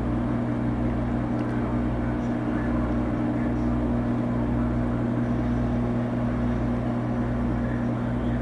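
Microwave oven running: a steady electrical hum over fan noise, with a low throb that pulses about once a second.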